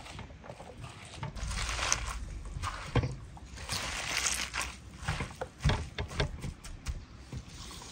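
Hands squeezing and tossing seasoned sliced onions in a metal tray: wet, crunchy rustling in a couple of longer squeezes, with a few sharp clicks in between.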